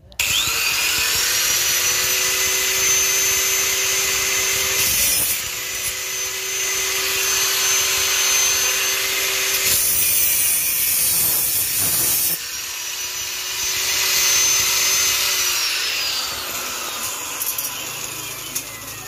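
Electric angle grinder switched on, spinning up at once to a steady high whine and cutting into metal TV-antenna rods, the noise turning harsher for a few seconds at a time as the disc bites. Near the end it is switched off, and its whine falls steadily as the disc winds down.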